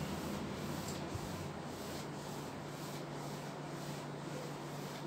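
Cloth duster rubbing across a whiteboard to erase it, a soft swishing in repeated strokes about twice a second.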